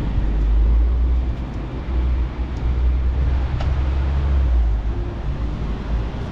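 Steady low rumble of city street traffic, easing off about four and a half seconds in, with a faint tap near the middle.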